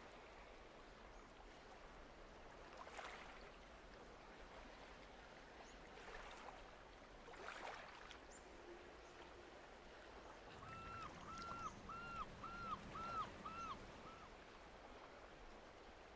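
A bird calling a quick run of about eight short, arched notes, roughly two a second, starting about ten seconds in, over faint lapping water with a few soft splashes earlier on.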